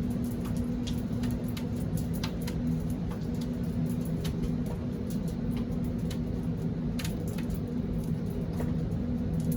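Rain shower: scattered raindrops and drips ticking at irregular moments over a steady low hum.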